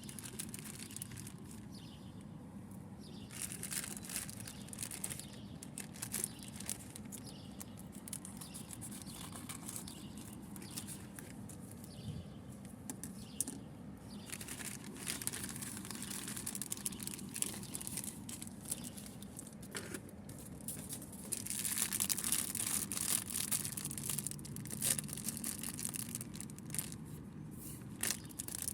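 Plastic packaging rustling and crinkling in bursts as a small parcel is handled and opened by hand.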